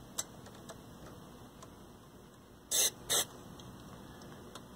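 Two short hissing spritzes from an aerosol can of deoxidant contact cleaner, about three seconds in, sprayed onto a TV chassis' switches to clean their oxidised contacts. Faint handling clicks come before them.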